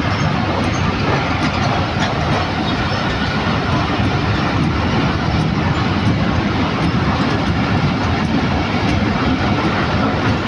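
Freight train of open box wagons rolling past close by at steady speed: a continuous loud rumble and rattle of wheels and wagon bodies on the rails, with faint scattered clicks.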